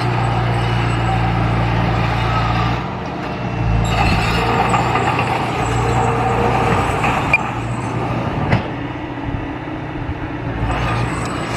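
Diesel engine of a heavy construction machine running steadily under load, with two brief sharp clanks in the second half.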